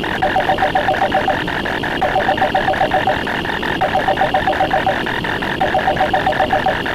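Elephant trumpet sound effect chopped short and retriggered over and over, several times a second, making a rapid stuttering buzz with short snatches of the call's pitch.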